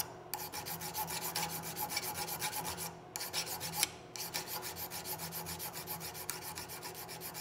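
Hand file rasping over a small cast rear sight in quick back-and-forth strokes, about four or five a second, filing the leftover casting-gate nub down flush. The strokes stop briefly twice around the middle.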